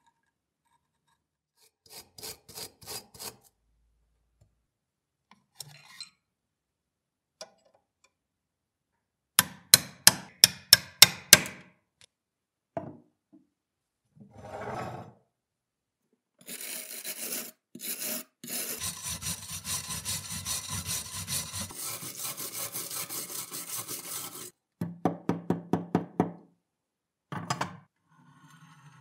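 Rusty metal parts of a mechanical coin bank clinking as they are handled and laid on a table, in quick runs of sharp taps. Between these comes a long stretch of scratchy rubbing, several seconds long.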